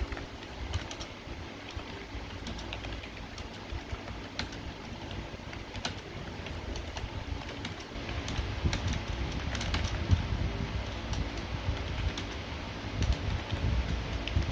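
Fast typing on a Razer Cynosa V2 membrane keyboard: a quick, irregular run of soft, muffled keystrokes with occasional sharper clicks.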